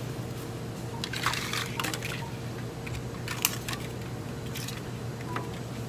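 Hands handling a cup of coffee and its plastic stir straw: a few scattered clicks and taps with light liquid drips, the loudest click about three and a half seconds in, over a steady low hum.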